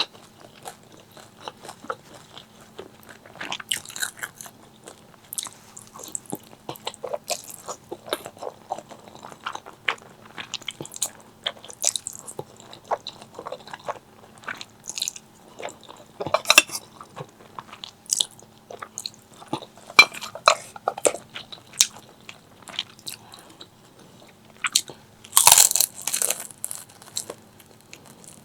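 Close-miked eating: a run of crunchy bites and chewing, with a louder spell of crunching about 25 seconds in.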